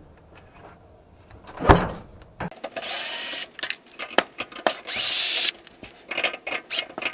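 Power drill running in short bursts, driving screws out of a microwave oven's sheet-metal bottom panel, with clicks and rattles between the bursts. A single knock comes about two seconds in.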